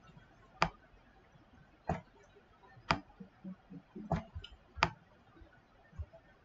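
Computer mouse clicking: about five single sharp clicks, roughly one a second, with a few fainter soft knocks between them.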